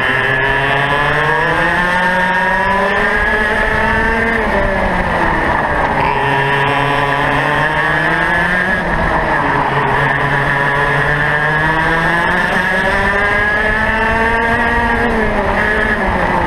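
Racing kart's two-stroke engine heard onboard, climbing steadily in pitch as it accelerates, then dropping as the driver lifts and brakes for corners, about five, twelve and fifteen seconds in.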